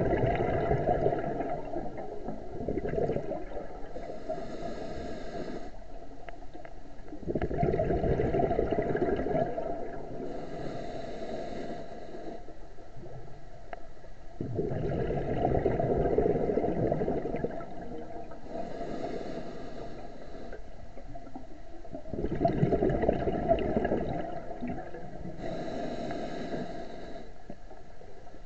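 Scuba diver breathing through a regulator underwater. Each breath is a short hiss on the inhale, followed by a rush of exhaled bubbles rumbling for about three seconds. There are about four breaths, one every seven seconds or so.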